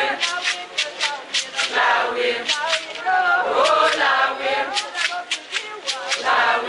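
A group of women singing together in chorus, with a quick steady beat of sharp strikes, about three a second, keeping time.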